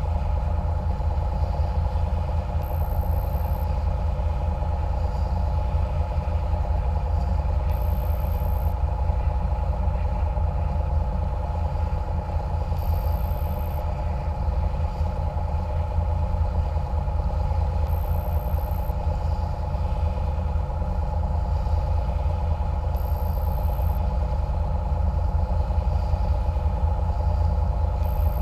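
Engines of a catamaran cruiser running steadily under way: a constant low drone with a steady hum above it.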